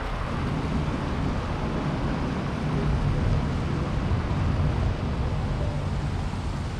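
Steady low rumble of street traffic, a little louder around the middle.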